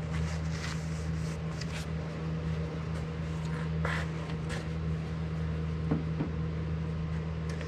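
Steady low hum with a few faint rustles and light clicks of hand handling, such as a dipstick being wiped with a rag.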